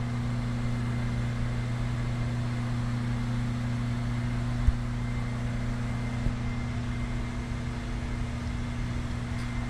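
Steady mechanical hum, a low drone with a higher overtone, unchanging throughout; a single faint click about halfway through.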